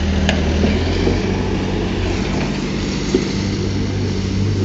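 Diesel engine of heavy earthmoving machinery running steadily, with a single sharp click shortly after the start.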